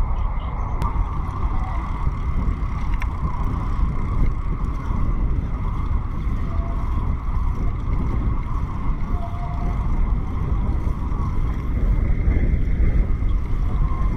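Riding noise from a moving bicycle: a steady low rumble of wind over the microphone and tyres rolling on the path, with a faint steady hum above it.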